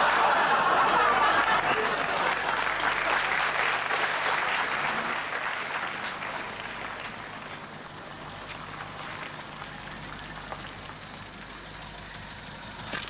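Studio audience applauding and laughing after a sketch's punchline, loud at first and fading away over about eight seconds into a quieter steady background.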